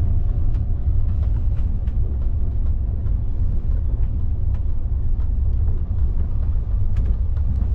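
Steady low rumble of a moving sleeper train, heard inside a first-class AC cabin, with light clicks and rattles scattered through it.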